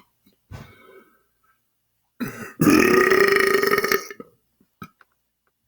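A man belching on purpose: a short, quiet burp about half a second in, then a long, loud belch of about a second and a half on one steady pitch.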